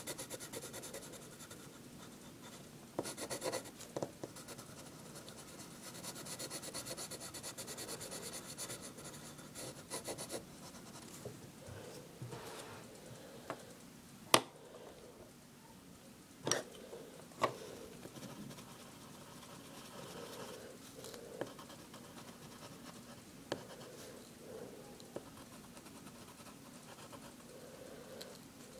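Pencil scratching on notebook paper as a drawing is shaded and coloured in, faint and irregular. A few sharp clicks stand out, the loudest about halfway through.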